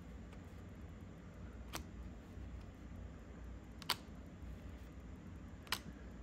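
Lorcana trading cards handled one at a time from a pack: three sharp card snaps, about two seconds apart, over a faint low room hum.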